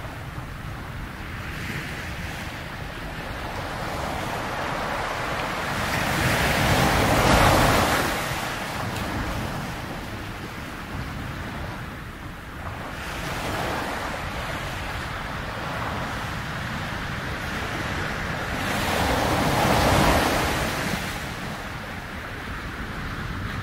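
Steady rushing noise that swells and fades twice, peaking about seven seconds in and again near twenty seconds.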